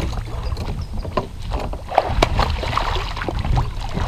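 Scattered knocks and water sounds around a fishing kayak as a hooked bass is fought up to the boat, over a low wind rumble on the microphone.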